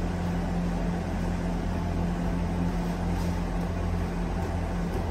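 Steady machine hum: an even drone with one constant low tone, unchanging throughout.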